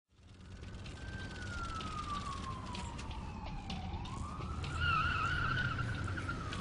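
A siren-like wail: one tone slides slowly down in pitch, then rises again about four seconds in and wavers, over a steady low rumble.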